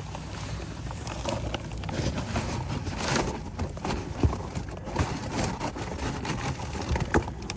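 Irregular knocks, clatters and rustling as someone moves about and handles tools and materials, with no steady machine sound.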